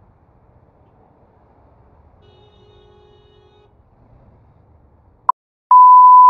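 Faint low traffic rumble, then about five seconds in a short blip and a loud, steady, high-pitched single-tone beep. The sound track drops out around the beep, as with an edited-in censor bleep covering words.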